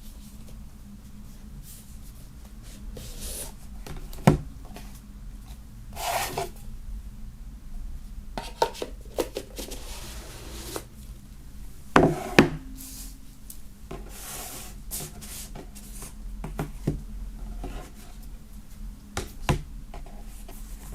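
Box set contents being handled: rubbing and sliding of cardboard and paper, broken by a few sharp knocks as items are set down, two of them close together about twelve seconds in.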